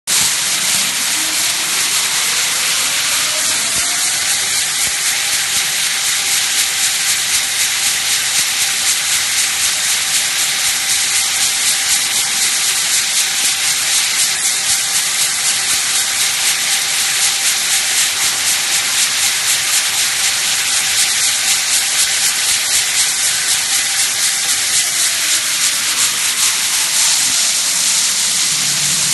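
Adhesive tape slitting and rewinding machine running: a loud steady hiss of tape being drawn off and wound onto the small rolls, with a motor whine that rises in pitch as the machine speeds up over the first four seconds, holds steady, then falls away as it slows about three seconds before the end.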